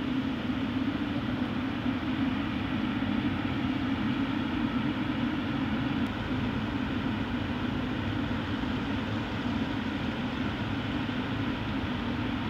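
Jet engines of taxiing airliners running steadily: a constant low rumble with a hiss over it.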